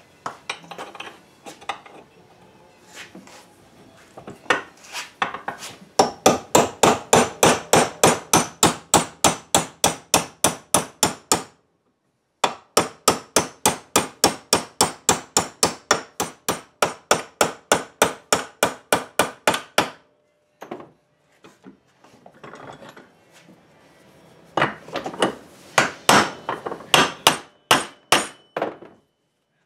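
Hammer tapping new hinge pins into the door hinges of a 1963 Chevy pickup: two long runs of quick, even blows, about four a second, with a short break between them, then a few scattered taps near the end.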